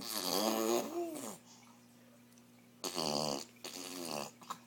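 A pet's vocal noises: a drawn-out call that rises and falls in pitch, then two shorter calls about three seconds in.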